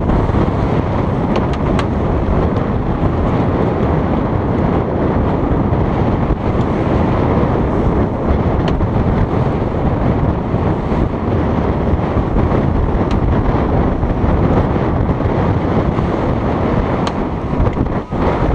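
Strong wind buffeting the microphone on the deck of a sailing trimaran under way, mixed with the rush of water along the hulls. A few brief clicks are scattered through it.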